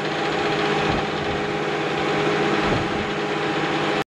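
Tractor engine running steadily with a steady whine on top, as its hydraulics fold the air drill on cold oil. The sound cuts off abruptly near the end.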